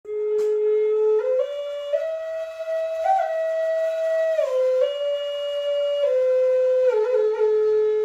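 A solo flute playing a slow melody, one held note at a time. It climbs in small steps over the first three seconds, slides back down, and comes to rest on its low opening note near the end.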